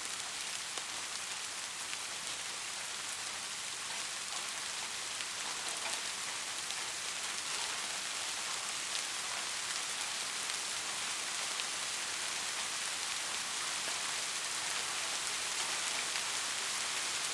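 Steady rain falling: a dense, even hiss of drops with fine scattered patter, getting slightly louder toward the end.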